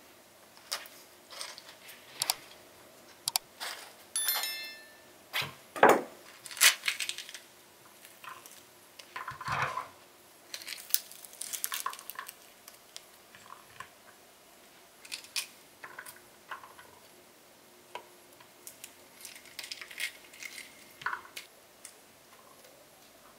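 Hands breaking open a ripe pomegranate and picking out its seeds: irregular crackles of the leathery rind tearing, with small clicks and taps of seeds dropping onto a ceramic plate. A short ringing clink about four seconds in.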